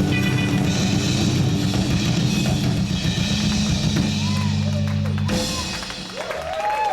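Live reggae band with drum kit, bass and guitar playing out the end of a song, closing on a held low note that cuts off about five seconds in. The audience then cheers and whistles.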